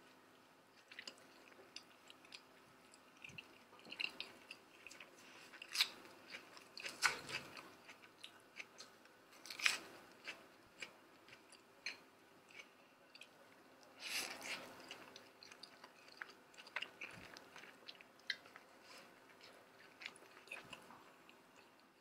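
Close-up chewing and biting of a sausage-and-egg English muffin sandwich and then crisp lettuce salad: soft, irregular crunches and mouth clicks, with a few louder crunchy bites.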